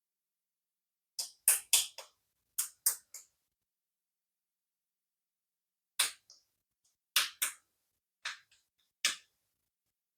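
Sharp clicks from a toy: a run of about seven in the first few seconds, then a pause, then another six or so spaced a quarter to a second apart.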